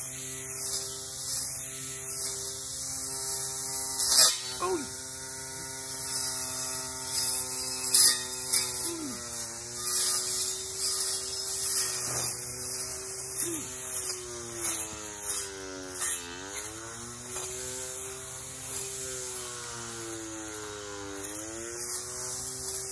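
Battery-powered weed eater with a cutting blade, its electric motor running with a steady whine. Twice the pitch dips briefly and comes back up, once near the middle and once toward the end. A few sharp ticks sound over it.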